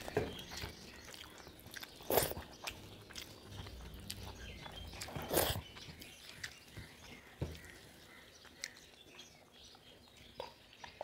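Two people chewing while eating rice, saag and roti with their hands from steel plates. Short clicks and scrapes of fingers against the plates punctuate the chewing, the loudest about two and five seconds in.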